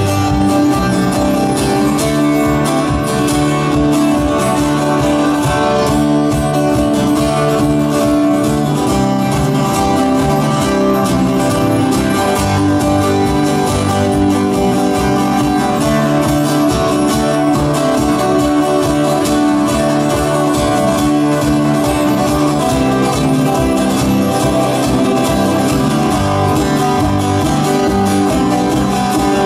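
Live band playing a steady instrumental number, with strummed guitars over bass and drums.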